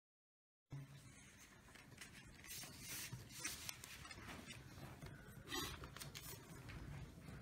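Silent at first. Then, from under a second in, a faint room sound with light scratching and small clicks of pens writing on paper envelopes, and paper being handled.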